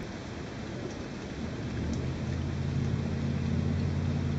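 Rain falling steadily as an even hiss. About two seconds in, a low, steady motor hum comes up beneath it and becomes the loudest sound.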